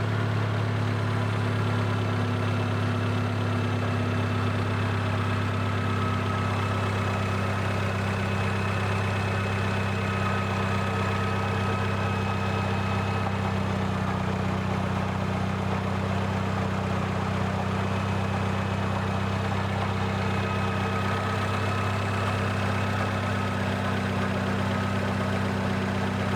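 Daihatsu Copen running steadily, a constant low engine drone with a faint higher whine that comes and goes.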